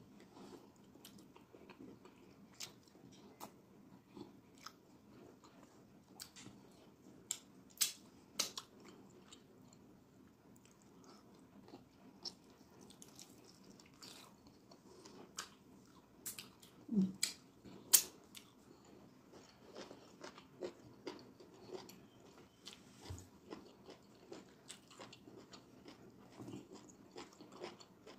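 Close-miked eating of fufu and egusi soup with the hand: wet chewing and lip smacking with many scattered sharp mouth clicks, the loudest smacks a little past halfway.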